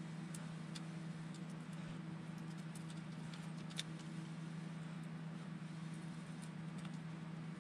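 Scattered light clicks and taps of small parts and tools being handled during RC car assembly, over a steady low hum.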